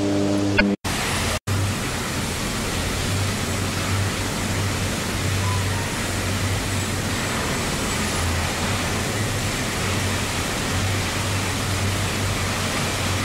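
Music cuts off about a second in. It gives way to the loud, steady noise of a steelworks around an electric arc furnace, an even rushing roar with a low, wavering hum underneath.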